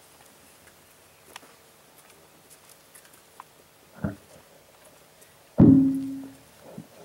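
A podium microphone being bumped and handled through the PA: a soft knock about four seconds in, then a loud thud a second and a half later with a short low hum ringing after it.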